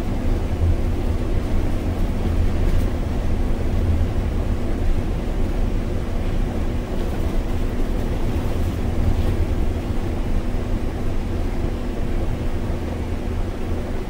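Cab sound of a MAN Lion's City city bus with a biogas engine under way: a steady low engine and road rumble.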